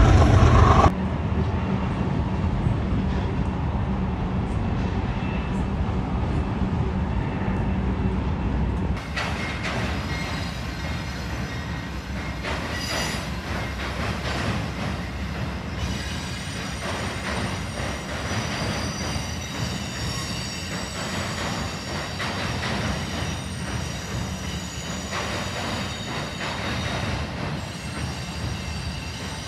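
A train running on the rails with a steady rumble; the sound changes abruptly about nine seconds in, and from about halfway through thin high-pitched wheel squeal rides over the rumble.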